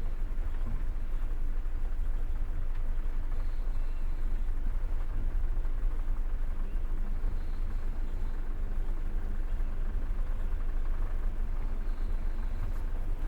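Passenger train running on the rails, a steady low rumble of the wheels heard from inside the carriage.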